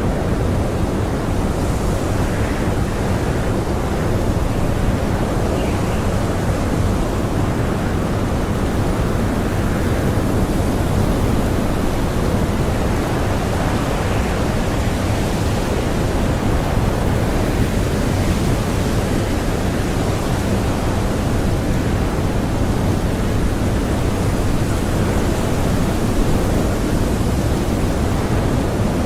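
Strong blizzard wind blowing steadily, a dense deep rush with faint higher gusts rising and falling now and then.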